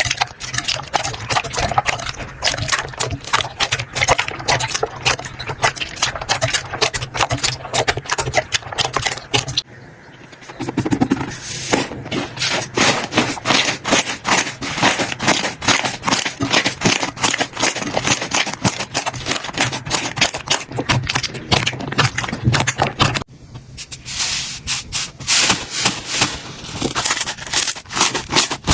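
Hands squeezing, stretching and pressing slime, making dense, rapid clicking and crackling. The sound changes abruptly about ten seconds in and again near twenty-three seconds, as one slime gives way to another.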